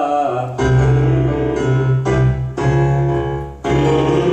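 Keyboard playing a run of held chords, each changing after about half a second to a second with short breaks between, the accompaniment to a vocal warm-up exercise.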